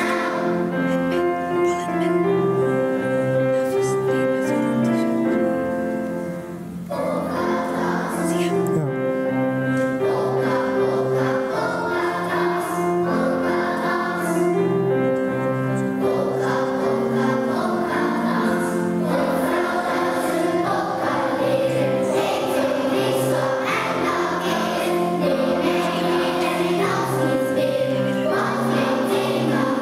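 Choir singing, holding long notes, with a short lull about six seconds in.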